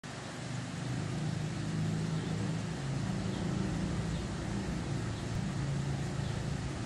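Steady low hum of a distant engine, with a few faint high chirps now and then.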